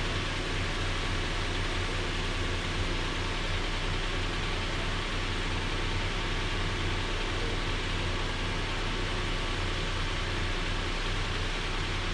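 Nissan Frontier's 4.0-litre V6 idling steadily with the hood open, a constant low hum under an even hiss, left running for the automatic transmission fluid check.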